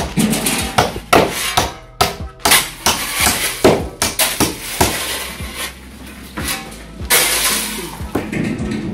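Irregular sharp knocks and clinks from a hand tool working on the steel reinforcing mesh and timber formwork of a walkway, like hammer strikes, over background music.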